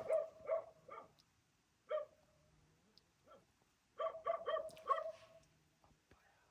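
Dog barking in runs of short barks. There is a quick run at the start, a single bark about two seconds in, and a fast run of about six barks about four seconds in.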